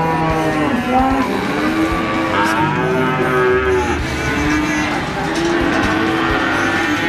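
Cattle mooing: several long, drawn-out calls that overlap one after another.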